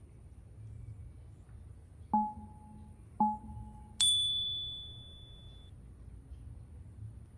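Three struck chime tones: two short lower notes about a second apart, then a higher, bright note that rings on for over a second and fades away.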